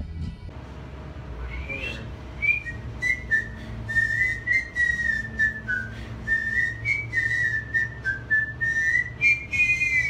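A man whistling a melody that wavers up and down, starting about two seconds in, over a steady low hum.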